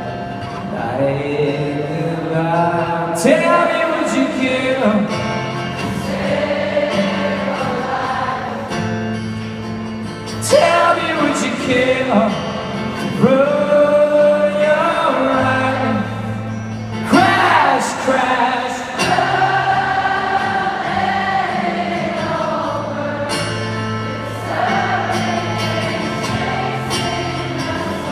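Live acoustic song: singing over acoustic guitar, recorded on a phone from within a large arena crowd.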